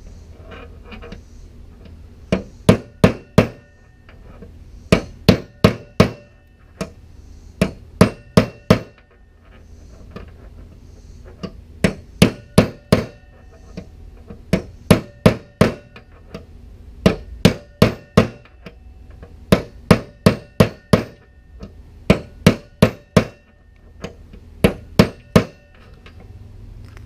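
Hammer driving a steel punch to knock a bearing out of a Hustler Raptor SDX mower deck spindle: bursts of four or five quick, ringing metal-on-metal blows, repeated every two to three seconds.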